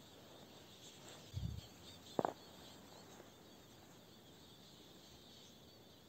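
Quiet outdoor ambience with faint high twittering, a soft low thump about a second and a half in and a sharp click just after two seconds.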